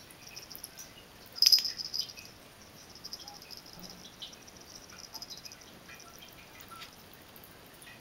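Water from a bathroom faucet dripping and splashing into the sink as a kitten laps at it, a fast patter of small wet clicks. There is one louder splash about one and a half seconds in.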